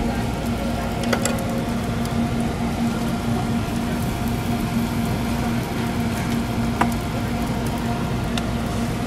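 Hotteok frying in oil on a hot flat iron griddle, a steady sizzling over a constant low hum, with a sharp click about a second in and another near seven seconds.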